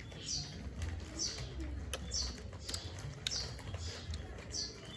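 Newly hatched bird chick cheeping: short high calls that fall in pitch, about one a second, with a few light clicks between them.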